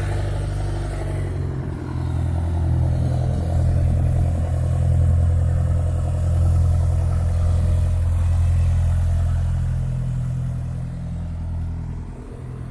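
Piston engine and propeller of a single-engine Cessna taxiing past, a steady low drone that grows louder a couple of seconds in and fades toward the end.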